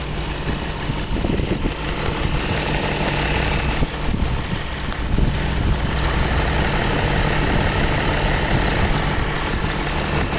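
2009 Dodge Journey's V6 engine idling steadily with the hood open.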